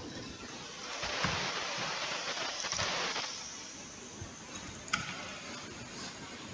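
Laptop cooling fan running with a steady rushing hum, swelling louder for about two seconds; a single click near the end. The noise is the laptop's unwanted humming.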